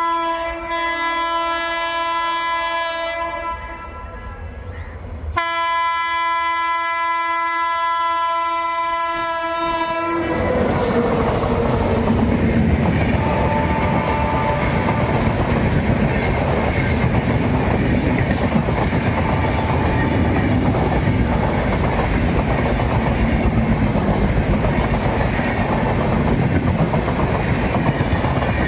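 Indian Railways WAP-7 electric locomotive's horn sounding two long, shrill blasts, the second starting about a second after the first ends. Then an express passenger train passes at about 80 km/h, a loud steady rush with wheels clattering over the rail joints.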